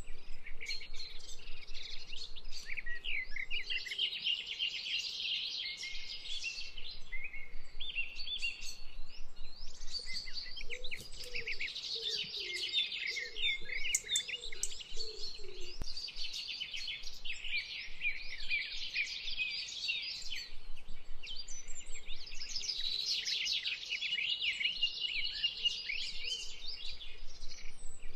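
Chorus of songbirds: dense, overlapping high chirps and trills with no pause, and a few lower calls about halfway through.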